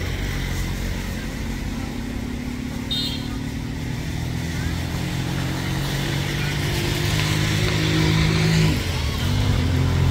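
A motor vehicle engine running, its pitch rising slowly and then dropping suddenly near the end.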